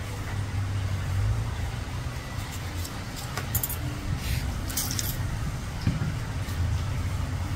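A few light metallic clicks from a steel nail lifter being worked and handled, over a steady low hum.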